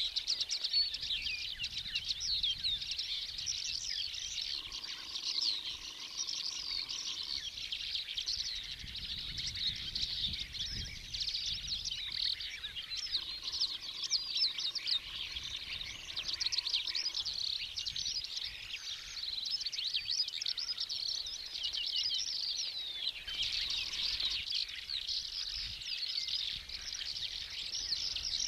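A dense chorus of small birds chirping, many quick high chirps overlapping without a break. A faint low rumble comes in about a third of the way through.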